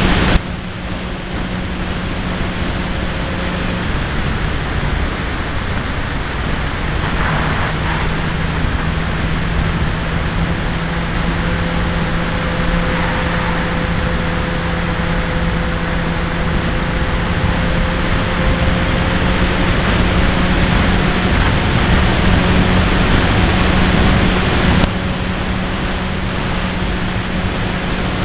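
Irvine 53 two-stroke glow engine of a radio-controlled model plane running steadily in flight, heard from a wing-mounted camera under heavy wind rush. Loudness dips just after the start and steps back up near the end.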